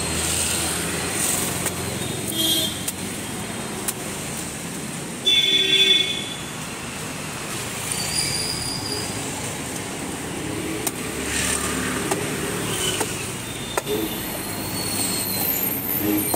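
Busy city street traffic, a steady hum of motorbikes and autorickshaws passing, with a vehicle horn honking once about five seconds in. A few isolated sharp knocks sound over it.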